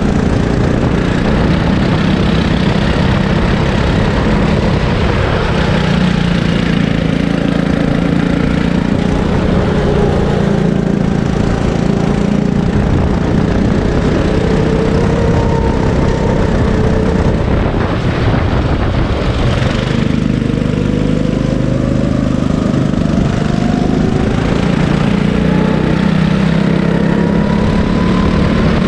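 Sodi kart's engine running hard around a circuit, its note rising and falling with throttle through the corners. About two-thirds of the way through it drops as the kart slows, then climbs in a long steady rise as the kart accelerates again.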